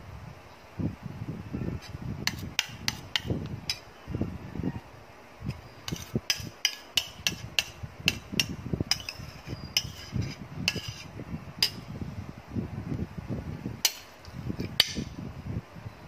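A utensil clicking and tapping against a glass baking dish while cream is spread over a dessert. The sharp clicks come irregularly in clusters, over dull low knocks and rubbing.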